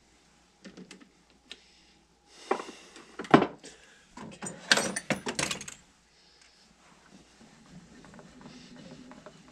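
Metal clicks, clanks and rattles of a lathe chuck key being worked in a chuck and taken out, loudest in a cluster of sharp knocks from about two to six seconds in.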